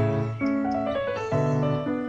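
Piano music: a melody of held notes over low bass notes that are struck at the start and again about a second and a half in.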